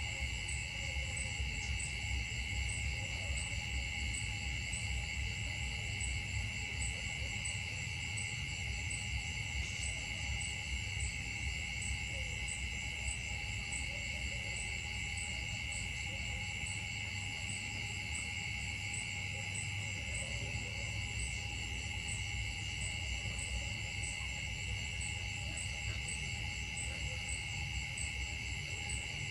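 Steady insect chorus: several high, shrill tones held without a break, the highest with a regular pulsing, over a low rumble.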